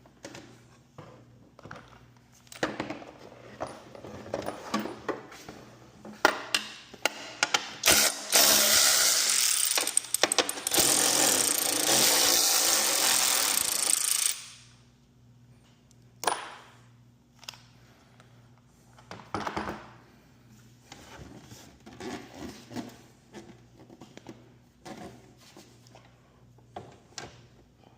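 Handheld power tool running for about six seconds near the middle of the stretch, then cutting off sharply, with scattered metal clanks and knocks of hardware and tools being handled before and after it.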